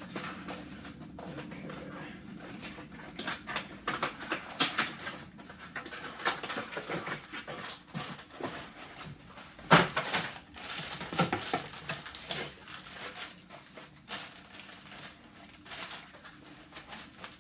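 Packaging and plastic vacuum parts being handled during unboxing: irregular rustles, clicks and knocks, with one sharp knock about ten seconds in.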